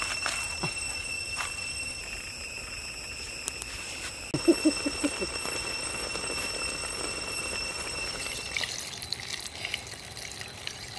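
Steady high-pitched tones with a brief run of low chirps about four seconds in, then from about eight seconds water splashing and trickling.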